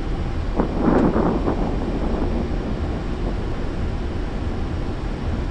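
Steady low rumble of airflow and engines in an Airbus A340 cockpit on short final approach, with a brief louder sound about a second in.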